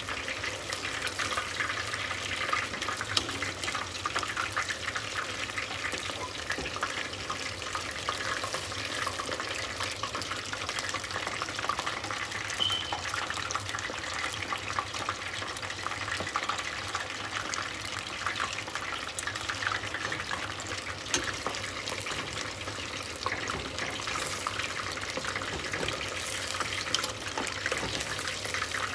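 Beer-battered chicken strips deep-frying in a pot of oil at about 350–375°F: a steady sizzle full of dense, fine crackling.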